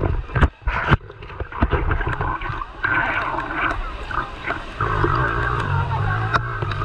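Pool water sloshing and splashing against a camera at the waterline, a few sharp splashes in the first second, then a muffled, gurgling underwater sound in which the surrounding bathers are dulled to a low hum.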